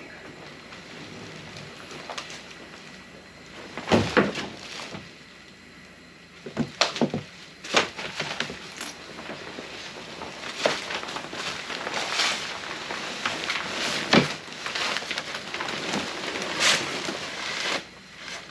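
Clamshell rooftop tent being opened by hand: irregular knocks and clunks from its hard plastic shell and frame, with rustling of plastic wrap and tent fabric as it unfolds through the second half.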